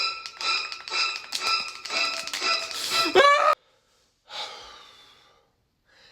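Sound effect of a knife: short metallic ringing strokes of the same pitch, about two a second, crowding closer together. About three seconds in, a rising cry cuts off suddenly, and a short breathy gasp follows.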